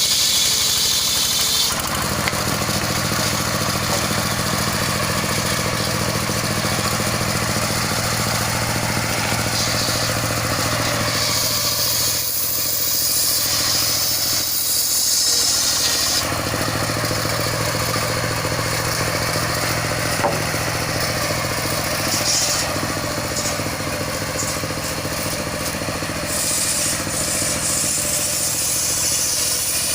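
Serkel circular-saw sawmill running: its engine drones steadily underneath a loud, high-pitched sawing hiss. Both ease for a few seconds near the middle, then pick up again.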